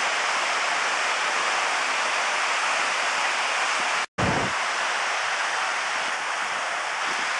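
Steady hiss of ocean surf breaking on the beach. About four seconds in it drops out briefly at an edit and comes back with a short low bump.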